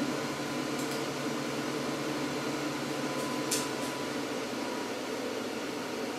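Steady whirring hum of a DTS Core beam moving-head light's cooling fans, with one brief tick about three and a half seconds in.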